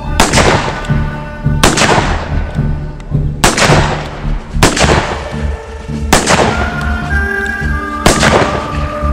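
Six black powder revolver shots, roughly one every one and a half seconds, each with a trailing echo, over background music with a steady beat.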